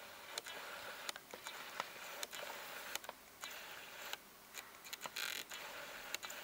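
Faint, irregular clicks and ticks from a Nikon D7100's autofocus hunting and the camera being handled, with a short rustle about five seconds in.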